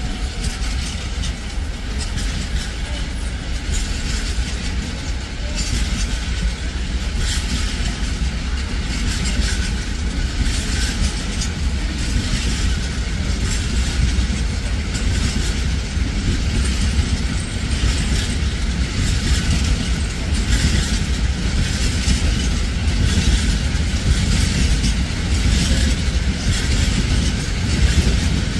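A train moving along the track: a steady low rumble with irregular clicks, slowly getting louder toward the end.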